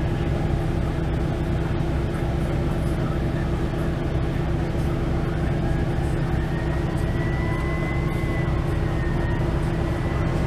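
Steady low rumble of an idling vehicle engine, with traffic noise. A faint, thin high tone comes in about seven seconds in and holds steady.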